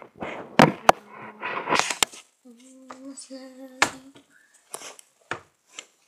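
Handling noise from a phone being fixed in place: a series of sharp knocks and clicks with some rubbing. Partway through, a voice hums two short notes at a level pitch.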